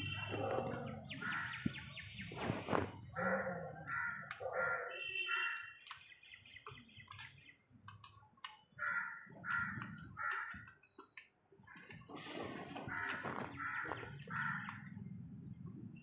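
Crows cawing, a string of short harsh calls in several runs.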